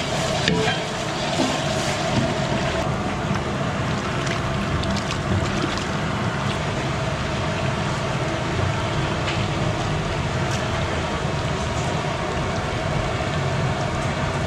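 Oil and masala sizzling in a large aluminium cooking pot over a burner: a steady roaring hiss. A few light clinks of the ladle against the pot are heard as raw chicken pieces are added.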